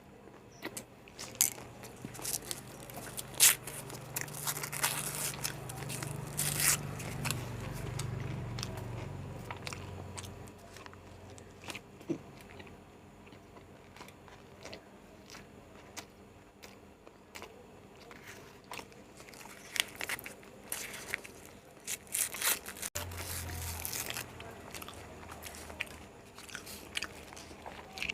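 A person biting and chewing egg rolls close to the microphone, with crackly bites and wet chewing. It comes in two busy spells, one near the start and one about two-thirds through, with quieter chewing in between.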